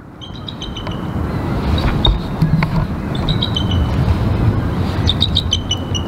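Low rumble of wind buffeting the microphone, with short runs of high chirping bird notes breaking through about four times.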